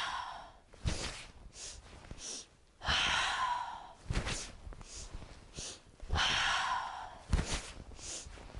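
A woman doing the breath of joy yoga breathing: three or four quick sniffs in through the nose, then a long, forceful, breathy exhale as she swings her arms down and bends her knees. The cycle repeats roughly every three seconds, with about three exhales heard.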